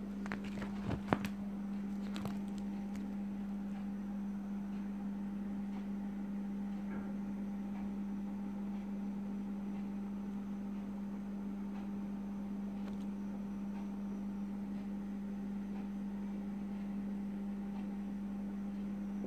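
A steady low hum, with a few clicks from fingers handling the plastic pocket pages of a coin album in the first couple of seconds.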